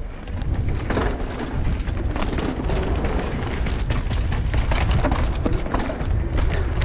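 Downhill mountain bike ridden fast over a rough dirt trail: a steady low rumble of wind buffeting the microphone, with constant clatter and knocks from the tyres, chain and suspension over bumps.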